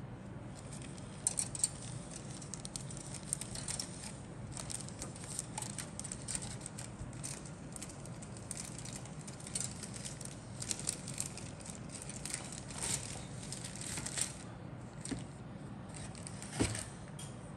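Plastic model-kit sprues and packaging being handled: scattered light clicks, taps and crinkling under a steady low hum, with a sharper knock near the end.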